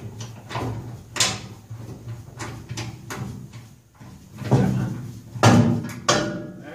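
Irregular metal clunks and knocks, about six in all, as an exhaust header is wiggled and pushed into place.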